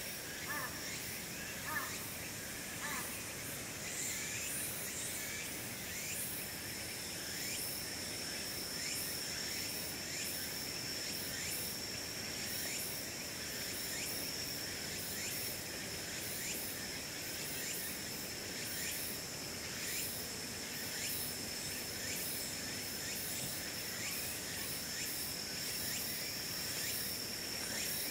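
Outdoor insect chorus: a steady, high-pitched insect drone comes in about six seconds in and holds, over many rapid short chirps and ticks. There are a few short animal calls in the first few seconds.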